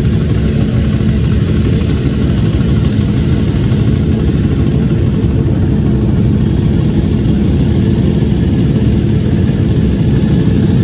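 Several race motorcycles, Ducati sport bikes among them, idling together on the starting grid: a steady, loud engine rumble.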